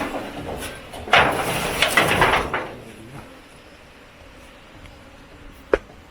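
Rustling and handling noise for about a second and a half, then quiet with a single sharp knock near the end.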